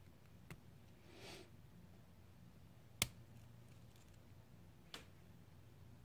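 Lock pick and tension wrench working the pin stack of a brass U-Haul 2-inch padlock: a few faint, separate clicks, the sharpest about three seconds in and another near five seconds.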